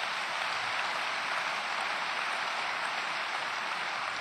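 Large audience applauding, a steady even clapping of many hands.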